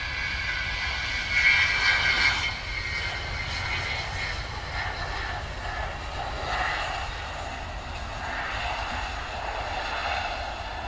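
Avro Vulcan XH558's four Olympus turbojets as the jet flies past: a whine of several steady high tones over a rushing jet noise. It is loudest about a second and a half in, then eases into a steady roar.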